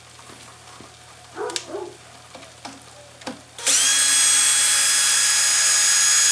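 A few light knocks of handling, then a power drill spins up about three and a half seconds in and runs steadily at speed, working the machine screws that hold the rack together.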